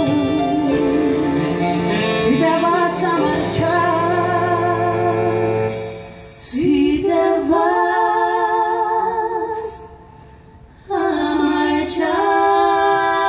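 Women singing into microphones, holding long notes with vibrato. A lower musical accompaniment runs under them for about the first six seconds and then stops, and the singing is left almost bare. The voices break off briefly around ten seconds in, then return with a held note.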